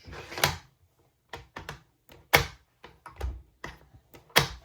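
Bolt-action rifle's bolt being worked by hand: a string of short metallic clicks and clacks, with two loudest clacks about two and a half and four and a half seconds in. The owner finds this bolt stiff to chamber and close, more so with a round loaded.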